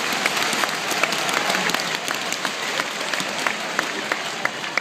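Large crowd applauding: many hands clapping at once, a dense scatter of sharp claps over a steady crowd murmur.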